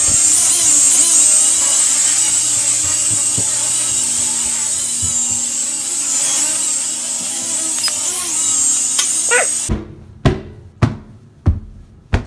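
Small toy quadcopter drone's propellers and motors whining steadily while it hovers and flies, the pitch wavering slightly. The whine cuts off suddenly near the end, followed by four sharp knocks.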